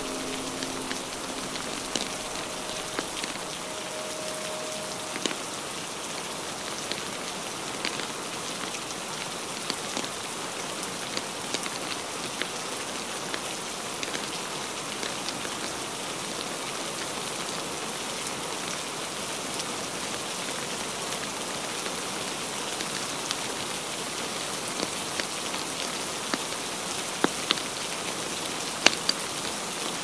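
Steady rain hiss with irregular sharp crackles and pops from a burning wood fire, the loudest pops coming near the end.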